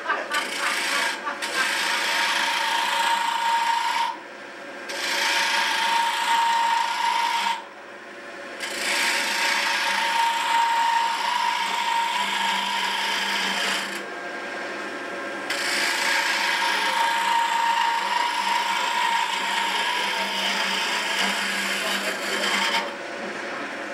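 Small hand tool scraping and cutting a spiral groove into a turned spindle on the lathe: a steady rasping sound that stops briefly three times.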